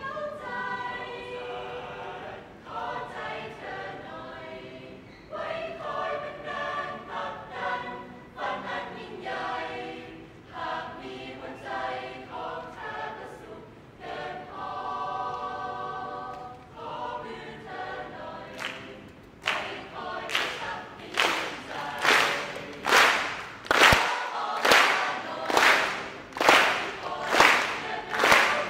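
Student choir of girls and boys singing unaccompanied in parts. About two-thirds of the way through, steady rhythmic hand claps join the singing, about three every two seconds, louder than the voices.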